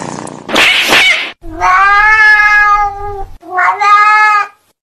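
Cats: a short harsh hiss-like burst, then one long drawn-out yowl lasting about two seconds and a second, shorter yowl, cut off abruptly near the end.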